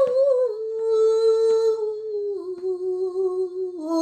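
A woman chanting solo in a slow, sustained voice, holding long notes that step down in pitch one after another.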